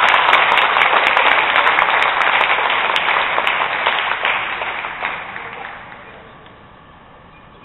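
Audience applauding, the clapping dying away about five to six seconds in.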